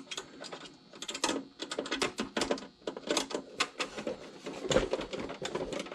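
Rapid, irregular clicking and small knocks of a screw being worked loose with a hand tool during disassembly.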